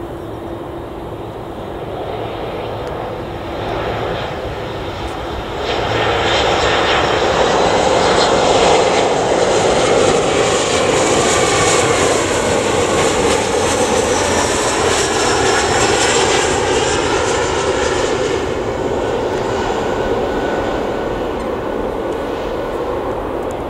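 Embraer E175 regional jet on final approach, its twin turbofan engines swelling into a loud jet whine and rumble as it passes close by. The whine drops in pitch as it goes past, then fades as the jet flares to land.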